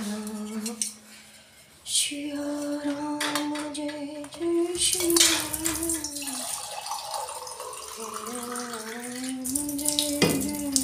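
A woman hums a slow tune in long held notes while a water tap runs, the water starting about four seconds in. A sharp clink near the end.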